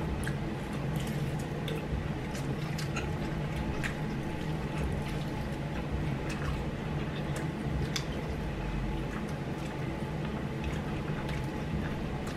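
Wet smacking and chewing of people biting into sauce-drenched chicken wings: scattered sharp clicks and squishes over a steady low hum.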